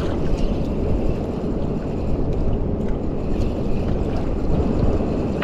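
Steady wind buffeting the microphone, with water lapping against a small outrigger fishing boat.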